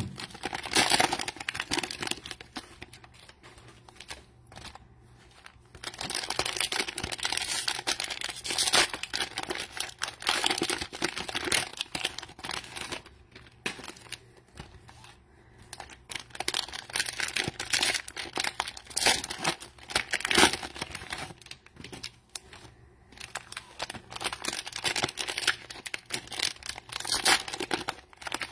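Cello-wrapped Mosaic football card packs being handled and torn open, the plastic wrappers crinkling in bursts with a few short pauses between.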